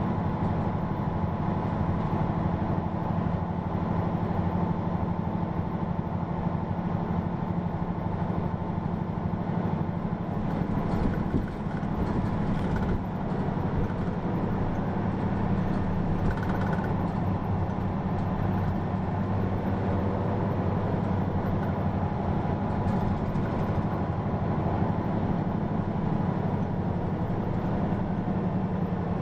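Hino PA-KR234J1 bus's diesel engine and drivetrain running with a steady low hum, heard from inside the cabin along with road noise, briefly dipping about eleven and thirteen seconds in.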